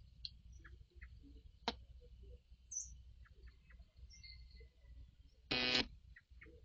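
Faint, scattered bird chirps over low background noise, with a sharp click about two seconds in and a short, harsh, buzzy call near the end, the loudest sound.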